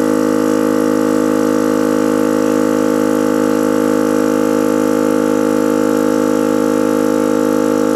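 Small electric air compressor running with a steady, even drone as it pumps up a motorcycle's front tyre.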